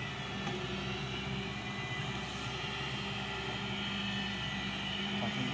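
An engine running steadily at constant speed, a low even drone.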